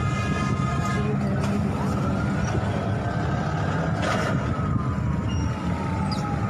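An emergency vehicle's siren wailing: one slow rise in pitch over a couple of seconds, then a slow fall. It sounds over a steady low rumble of vehicles.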